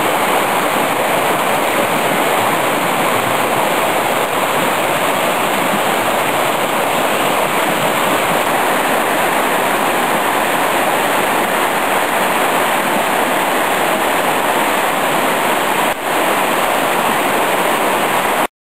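Swollen, muddy mountain stream running high after a flood, rushing over rocks and gravel in a steady, loud wash of water. The sound cuts off abruptly near the end.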